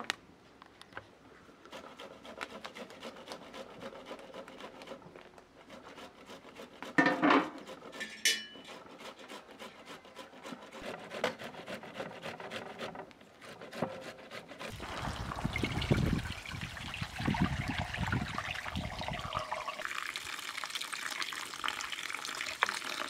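Cooking sounds in turn: a wood fire crackling with many small snaps, a couple of loud clatters about seven seconds in, and then tomatoes rasped on a metal box grater. From about fifteen seconds in, water pours and splashes into a plastic basin of spring onions and radishes, settling into a steady running stream near the end.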